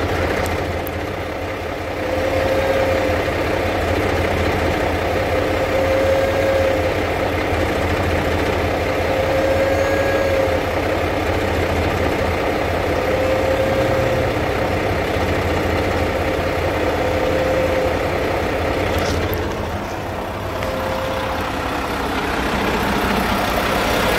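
Semi truck's diesel engine idling steadily, with a short mid-pitched tone that recurs about every three and a half seconds.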